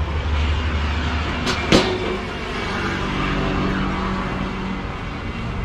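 A motor vehicle's engine runs steadily with a low hum, and a sharp knock comes about a second and a half in.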